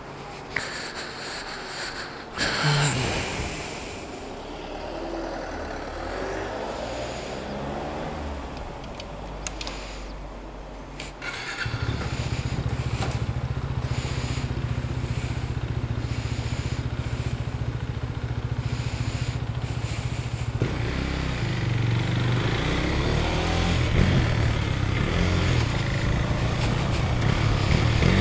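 Handling and movement noises, then about a third of the way in a KTM Duke 390's single-cylinder engine starts abruptly and idles steadily. From about two-thirds of the way in it pulls away, its revs rising as it accelerates.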